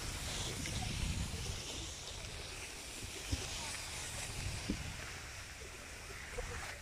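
Skis sliding over groomed snow with a steady hiss, under a low rumble of wind on the microphone as the skier moves downhill.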